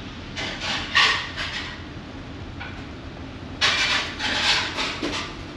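Steady low drone of the ferry's engines under way, with two short bursts of rubbing noise, the louder one about three and a half seconds in.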